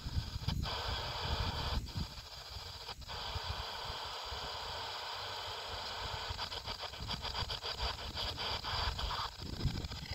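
P-SB11 spirit box scanning AM and FM radio stations: a steady hiss of radio static that drops out briefly three times in the first few seconds. About six seconds in it breaks into a rapid, even stutter, then cuts off near the end, over a low rumble.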